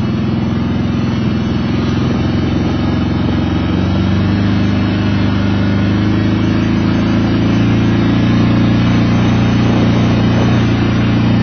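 Four-wheeler (ATV) engine running steadily as the machine drives along, heard close up from on board; it grows a little louder partway through.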